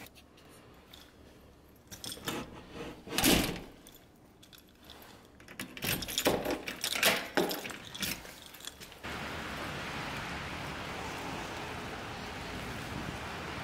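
Keys jangling and a door's lock and handle clicking and rattling as a door is worked, with one loud knock about three seconds in. From about nine seconds, a steady rushing outdoor noise takes over.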